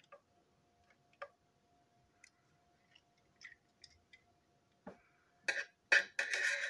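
Small plastic toy train engine being unscrewed and pulled apart by hand: faint scattered clicks of the screwdriver and plastic parts, then a louder burst of plastic scraping and rattling near the end as the pieces are handled.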